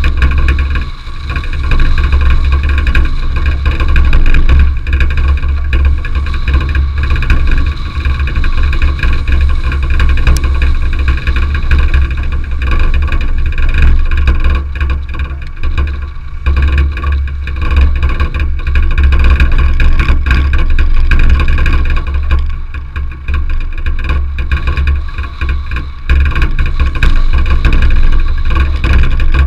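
Car driving along a gravel dirt road: a continuous loud low rumble from the car and the road surface, with engine noise under it.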